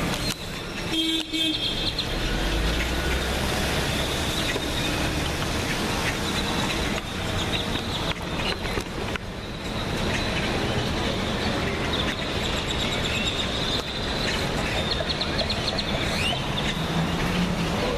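Steady outdoor noise of light rain and traffic, with a low rumble about two seconds in and small birds chirping now and then.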